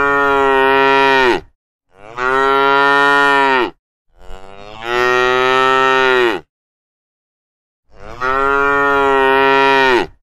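Domestic cow mooing: one long moo already under way, then three more, each about two seconds long and steady in pitch before dropping at the end, with short silences between them.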